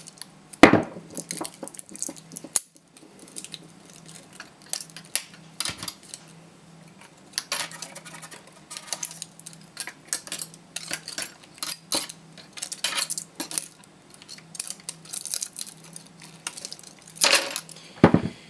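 Pliers gripping and tearing spot-welded nickel strips off cylindrical 18650 lithium-ion cells: irregular sharp metallic clinks, snaps and scrapes, with the cells knocking against each other and the table.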